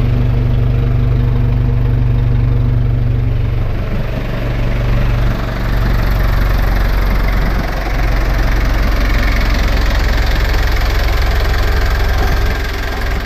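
Freshly rebuilt diesel engine idling steadily.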